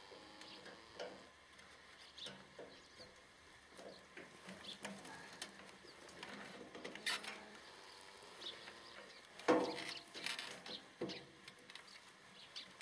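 Faint clicks, rustles and knocks of hand tools and gear being handled, with a louder knock about nine and a half seconds in.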